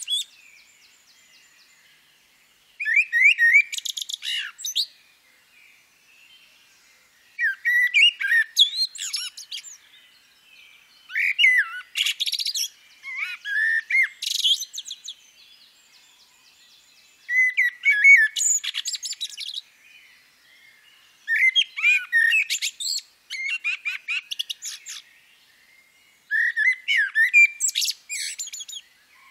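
A songbird singing short, varied phrases of chirps and trills, one about every four seconds with brief pauses between, from a birdsong field recording.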